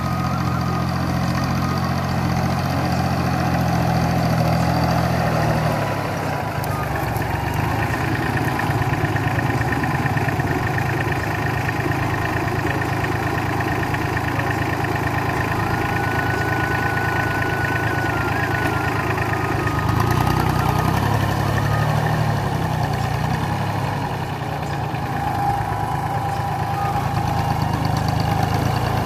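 VST mini tractor's diesel engine running steadily while the tractor drives through the crop with the boom sprayer working, its note shifting a little about six seconds in and again near twenty seconds.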